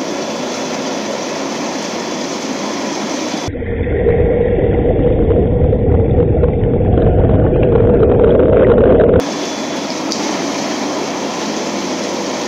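Bestway Lay-Z-Spa Miami inflatable hot tub with its bubble jets on: the air blower's steady hum and the water churning and bubbling. About three and a half seconds in, a louder, muffled sound takes over for about six seconds: a deep rumble with a steady hum. It cuts off suddenly and the bubbling returns.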